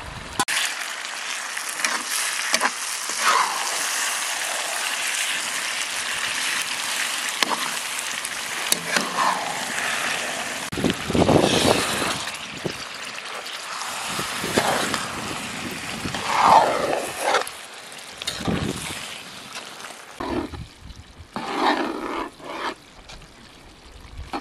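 Meat and tomato stew sizzling in a metal pan, with several louder scrapes as a metal spatula stirs it. The sizzle thins out in the last few seconds.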